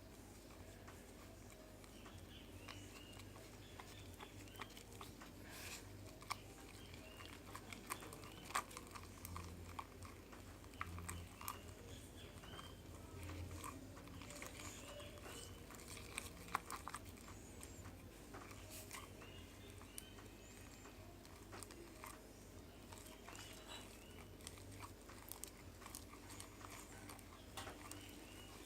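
Homemade glue slime being stirred and kneaded, giving faint, irregular sticky squelches and small clicks.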